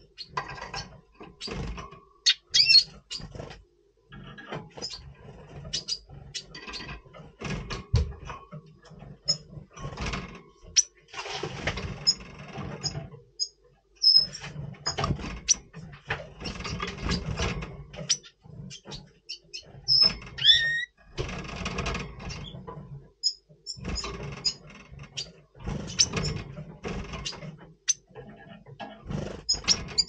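Red siskin (pastel mutation) giving short, high chirps and calls in breeding condition, including one downward-gliding call a little after 20 seconds. The calls are mixed with frequent clicks and bursts of rustling noise.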